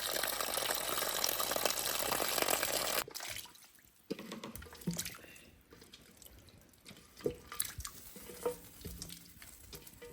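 Water running from a tap into a basin as boiled pig trotters are rinsed, cutting off sharply about three seconds in. After that it is quiet apart from a few small knocks.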